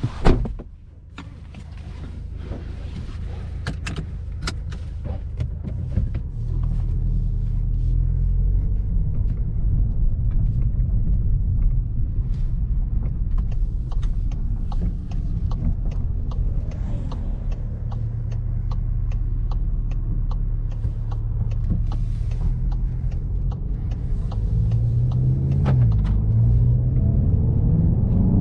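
2021 Volkswagen Golf GTI Mk8's turbocharged 2.0 TSI four-cylinder running while driving, a steady low rumble with road noise. Near the end the engine note rises as the car accelerates. A sharp knock comes just after the start.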